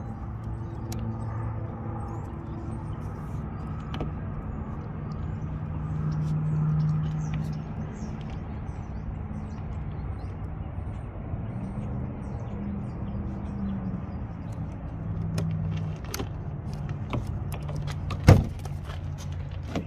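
Faint scraping and clicking of a box strap being worked through a pickup truck's door frame, over a steady low hum, with one sharp click near the end.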